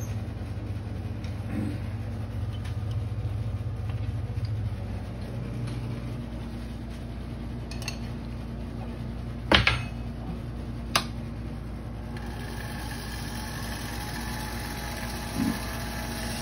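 Porper cue lathe motor running with a steady hum that shifts slightly about five seconds in, and a hiss joins about twelve seconds in. Two sharp clinks near the middle, about a second and a half apart.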